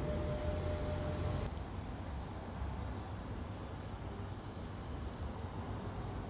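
Outdoor ambience: a steady low rumble, with a steady hum that cuts off suddenly about a second and a half in. After that, faint regular insect chirping can be heard over the rumble.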